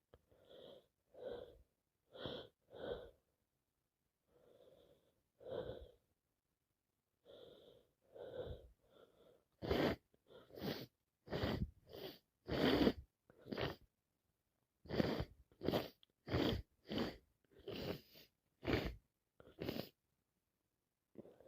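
Person with a heavy head cold making a long series of short, congested breaths and sneezes. Fainter gasps come first, then from about ten seconds in louder bursts follow about twice a second.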